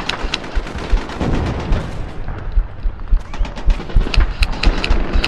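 Airsoft guns firing scattered single shots, sharp clicks coming irregularly and growing more frequent in the second half. Low thuds of movement under the shots.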